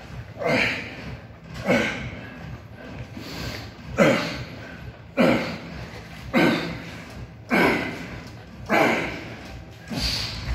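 A man's forceful breaths pushed out in rhythm with each leg-press repetition, about one every 1.2 seconds, nine in all. Each is a sharp breathy rush that drops in pitch as it fades.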